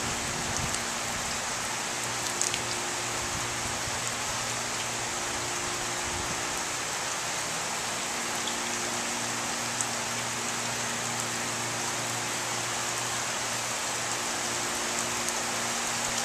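Heavy rain pouring steadily onto wet pavement and parked cars, an even hiss, with a faint steady low hum underneath.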